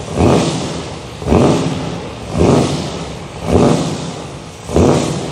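Loud engine-like background noise that surges about once a second and fades away between surges, loud enough to drown out a voice.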